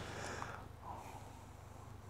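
A domestic goose gives a faint, short call about a second in, over a low steady rumble.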